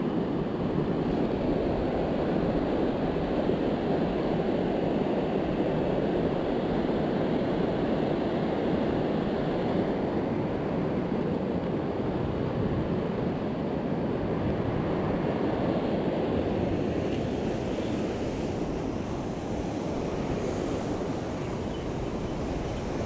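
Steady rush of flowing river water, with some wind buffeting the microphone.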